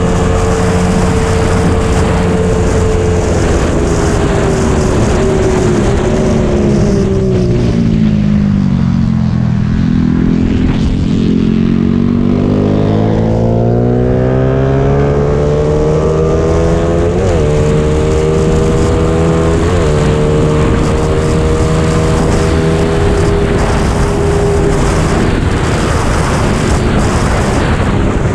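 Motorcycle engine at speed, heard from an onboard camera with air rushing over the microphone. The revs drop smoothly for several seconds as the bike eases off, then climb as it accelerates again, with two quick gear changes about two-thirds of the way through, and then hold high and steady.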